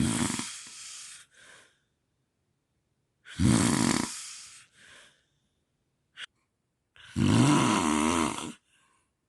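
A sleeping person snoring: three snores about three and a half seconds apart, the later ones with a low, rattling buzz. The first two are each followed by a short, softer breath, and there is a brief click near the middle. The uploader presents this snoring as part of sleep apnea.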